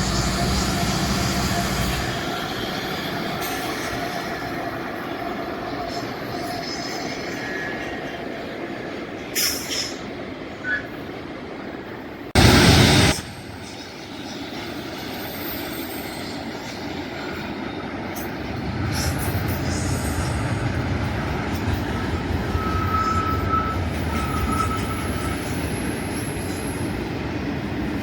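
Freight train running past, with steady rumble and wheel noise and faint thin squeals from the wheels. About twelve seconds in there is a short, very loud blast of noise. A deeper rumble of diesel locomotive engines swells in about two-thirds of the way through.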